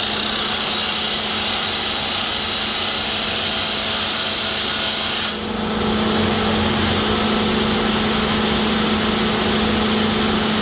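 JD1400 hydraulic drill rig running while drilling vertically, with a loud hissing drilling noise over a steady hum. The hiss drops away suddenly about five seconds in, leaving the hum.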